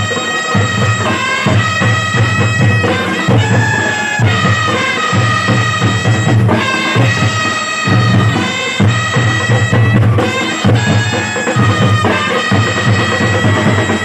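Drum and bugle corps playing: marching drums beat a steady rhythm under a melody of held, changing notes on horns.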